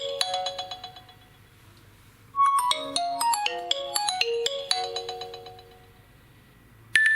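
Nokia 2.2 stock ringtone playing: a quick melodic run of short pitched notes that fades away, then after a pause of about a second the same phrase loops again. Just before the end a different ringtone starts, with longer, higher notes stepping down.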